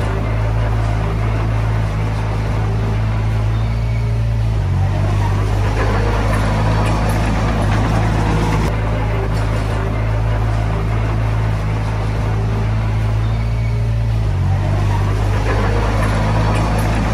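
Komatsu D20P bulldozer's diesel engine running steadily, its note stepping to a new pitch about five seconds in and again about fourteen seconds in, with mechanical noise over it that swells and fades.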